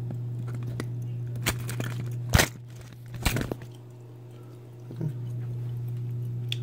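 A phone is handled and set in place against a countertop: a few knocks and scrapes, the loudest about two and a half seconds in, with a last light knock about five seconds in. Under them runs a steady low hum.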